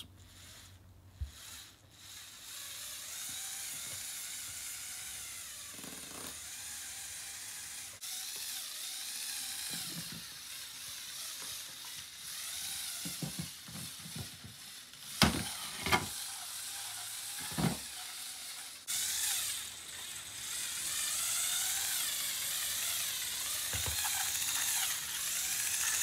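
Lego Technic rock crawler's two Power Functions XL drive motors and gear train whirring as it climbs over obstacles. There are a few sharp knocks in the middle as it bumps over, and the whirring gets louder near the end.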